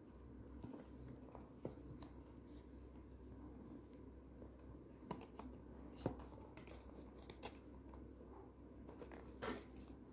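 Faint handling of a cardboard smartwatch box: hands turning and rubbing it, with a few light clicks and scrapes scattered through, over a low steady hum.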